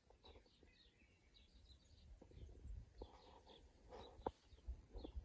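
Faint birdsong: small birds giving short, high chirps again and again over a low background rumble, with a couple of soft clicks about three to four seconds in.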